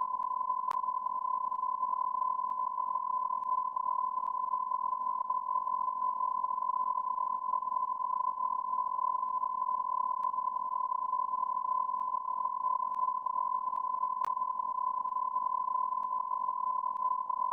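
Continuous electronic beep tone held steady at one pitch, like a censor bleep or test tone, over a faint hiss.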